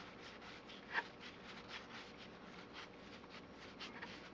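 Stack of 1984 Topps cardboard baseball cards being thumbed through by hand: soft, quick flicks and slides of card against card, several a second, with one sharper snap about a second in.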